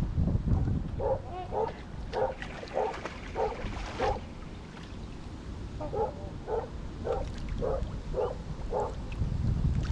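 Large waterfowl honking: two runs of about six short, evenly spaced honks each, roughly two a second, with a pause of about two seconds between the runs.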